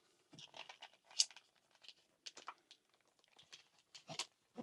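Plastic packaging rustling and crinkling as it is handled and pulled apart to free a small knife, with scattered light clicks and a couple of sharper crackles.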